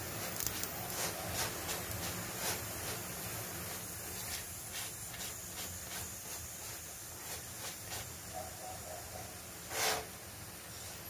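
Oil-brushed methi paratha sizzling on a hot tawa as it puffs up: a steady hiss with scattered small crackles, and one louder pop near the end.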